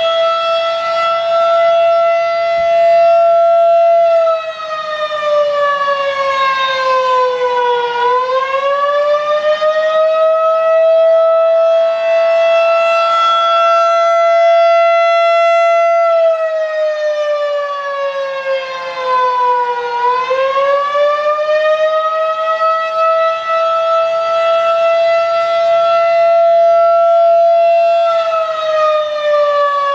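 Federal Signal 2001-DC single-tone electromechanical siren sounding a loud, steady tone. Twice the pitch sags and climbs back, and it starts to sag again near the end.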